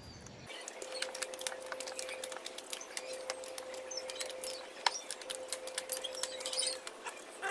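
Playing cards being pulled out, one after another, from between a freshly spray-painted motorcycle mag wheel's rim and its tyre: a dense run of small crackles, scrapes and snaps, over a faint steady hum.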